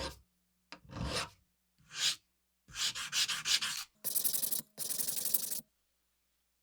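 Strokes of hand abrasion, about six of them, rubbing across a tool's metal or wood. The last three are longer and louder, then they stop.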